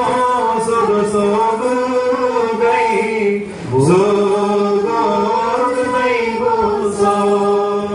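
Slow liturgical hymn chanted by male voices in long, held notes, from the Orthodox feet-washing service. About three and a half seconds in the singing dips briefly, then slides up into the next long note.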